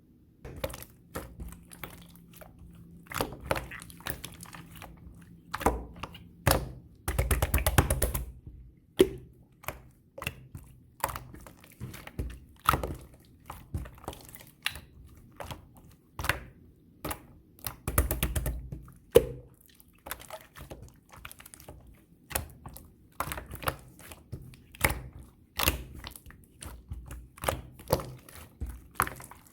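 Clear slime being squished and poked by hand, making irregular sticky clicks and pops, with two longer stretches of dense squishing, one about a quarter of the way in and one past the middle.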